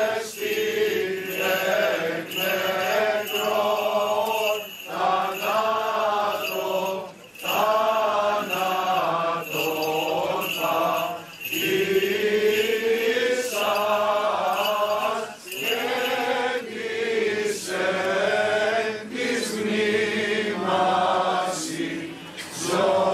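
Greek Orthodox Easter hymns in Byzantine chant, sung by voices in phrases a few seconds long with brief pauses between them.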